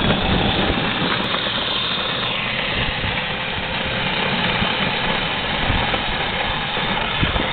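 Children's battery-powered ride-on toy car driving on asphalt: its plastic wheels and small electric motor make a steady, rough rolling noise.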